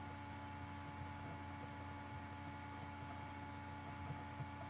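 Faint, steady electrical hum made of several constant tones over a low hiss.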